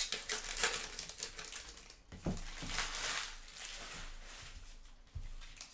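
Baseball trading cards being handled and sorted on a tabletop: quick clicks and rustles as the cards are flicked through and slid against each other.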